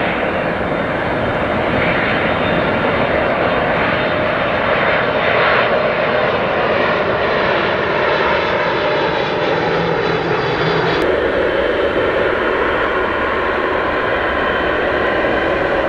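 Jet engines of a Boeing 747-400 freighter at takeoff power as it climbs past, with a whine that falls in pitch. About eleven seconds in, the sound cuts abruptly to the steady engine noise of a Boeing 777-300ER's GE90 engines on the runway.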